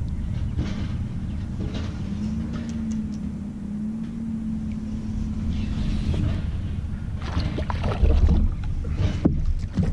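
Wind rumbling on the microphone over open water, with a faint steady hum in the middle stretch. Near the end come a few splashes and knocks as a small redfish is reeled up to the kayak.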